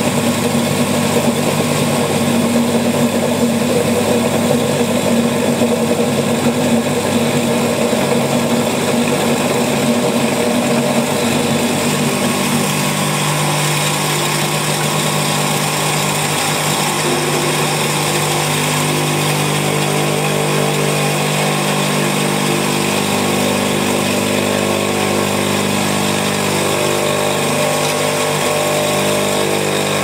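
Electric potter's wheel motor running steadily as the wheel head spins; its tone shifts a little under halfway through.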